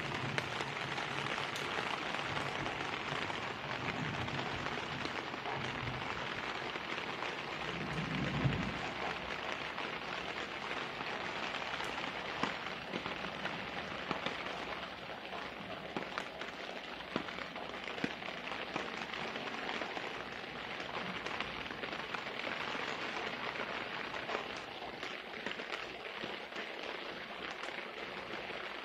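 Steady rain falling, an even hiss with many scattered sharp drip ticks. A brief low rumble comes about eight seconds in.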